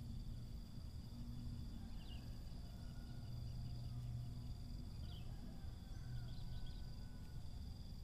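Outdoor ambience: a steady high insect drone over a low rumble, with a few short bird chirps about two, five and six seconds in.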